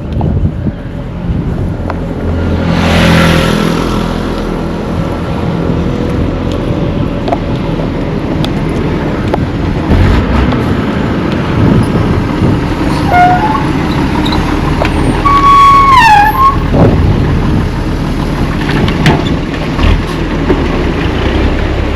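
Road traffic with wind on the microphone: a vehicle passes close by about three seconds in. Over the steady rumble, short pitched tones bending downward come near the middle.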